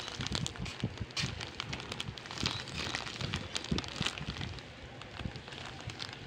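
Clear plastic bag of sugar-coated gummy candies crinkling and rustling as it is handled, an irregular run of crackles that thins out over the last two seconds.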